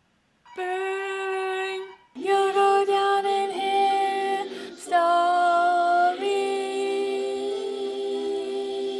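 A woman singing long held notes. After about two seconds a second melody line joins, and she holds harmony notes against it.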